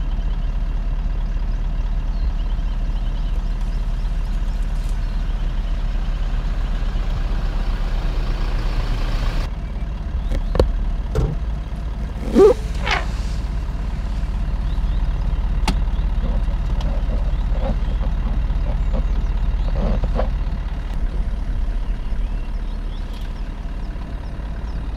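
A vehicle engine idling with a steady low hum. A short, loud rising sound comes about halfway through.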